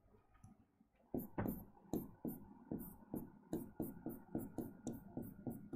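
Stylus tapping and scratching on the glass of an interactive smartboard during handwriting, starting about a second in as a quick run of short taps, two to three a second.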